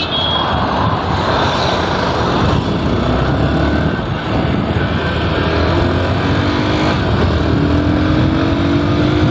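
Hero Xpulse 200T's carburetted 200 cc single-cylinder engine pulling under open throttle as the motorcycle accelerates, its note rising in pitch over the last few seconds. Heavy wind rush on the microphone runs under it.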